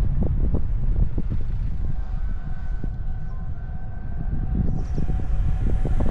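Wind buffeting the microphone over the low road rumble of a car driving. About two seconds in, a faint steady tone joins and holds.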